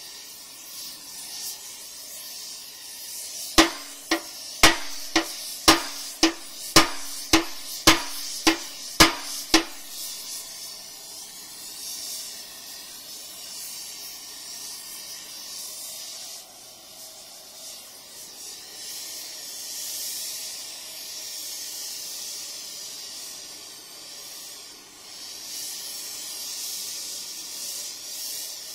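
Hammer blows on the steel excavator stick, about a dozen at roughly two a second, each ringing briefly, a few seconds in. Under them, and on after them, is the steady hiss of a carbon arc gouging torch's arc and compressed-air jet blowing out molten metal.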